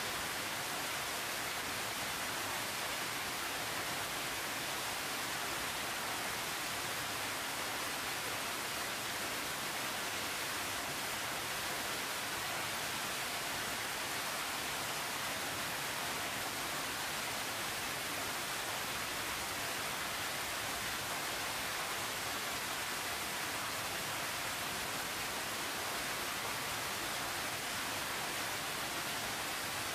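A steady, even hiss that does not change, with no distinct sounds in it.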